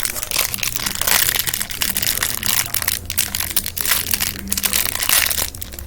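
Plastic packaging crinkling and rustling as it is handled, a busy crackle that goes on throughout.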